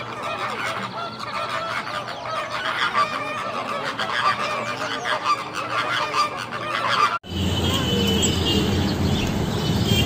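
A flock of greater flamingos honking and gabbling, many goose-like calls overlapping. About seven seconds in it cuts abruptly to a lower, denser din from a flock of feral pigeons feeding and flapping.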